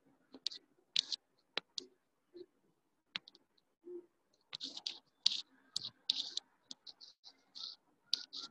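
Irregular light clicks and taps, scattered at first and coming thicker and faster from about halfway through.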